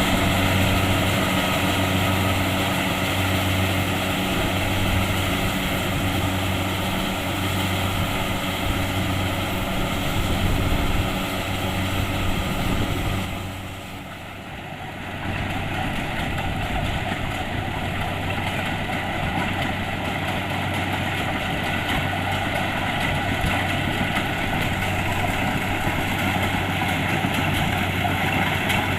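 Kubota DC-70 Plus combine harvester's diesel engine and threshing machinery running steadily. The sound dips briefly about halfway through, then carries on.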